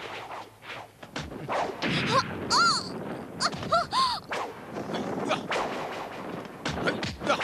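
Martial-arts fight sound effects: a fast run of whooshes and hard hits, with a few short shouts or cries from the fighters about two and four seconds in.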